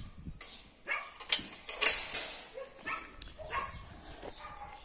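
Dogs barking several times in short, irregular barks.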